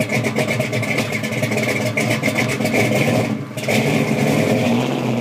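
A car engine running with a fast, even pulsing beat. It drops away briefly about three seconds in, then picks up again.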